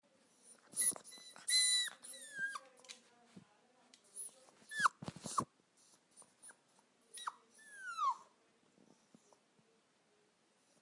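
A puppy whining: short high-pitched whimpers that slide down in pitch, coming in small groups about a second in, around the middle and again a little later, with short breathy sounds between them.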